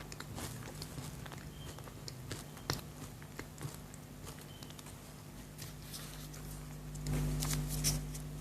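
Quiet chewing of chocolate: scattered soft mouth clicks over a steady low hum, with a louder stretch of noise about seven seconds in.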